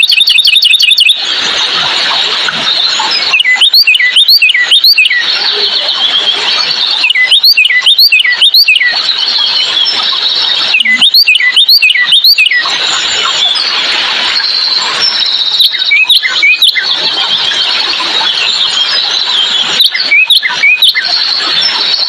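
Wild birds calling: a quick high trill in the first second, then groups of three to four sharp, sweeping chirps repeated about every four seconds. Behind them runs a steady, dense high-pitched chorus.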